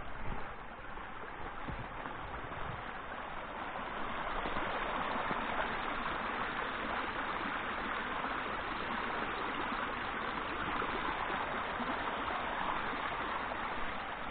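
Small stream of rainwater runoff flowing over a rocky dirt track, a steady rushing sound that grows a little louder about four seconds in.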